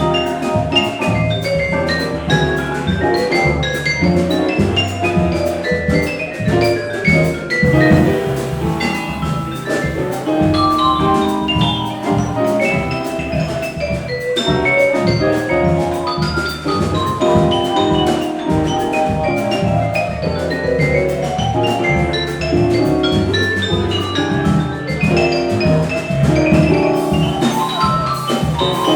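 Live small jazz combo playing: quick runs of short melodic notes climbing and falling over bass and drums.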